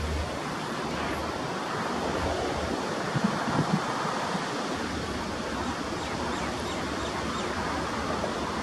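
Diesel-hauled container freight train passing at a distance: an even rushing noise of the train on the rails, with a low engine rumble that fades about half a second in and comes back about halfway through.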